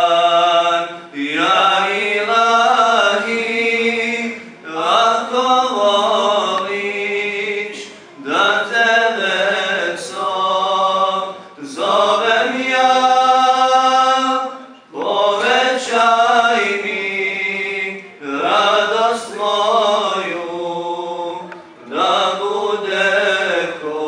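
A man singing a Bosnian ilahija, an Islamic devotional hymn, unaccompanied into a microphone, in drawn-out, wavering phrases with short breaks for breath between them.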